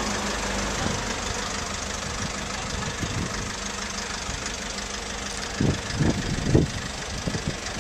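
Ambulance engine idling steadily, heard close up, with three short louder sounds about six seconds in.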